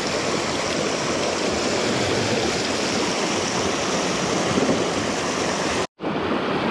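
Mountain stream rushing over rocks in pocket water, a steady loud wash of water.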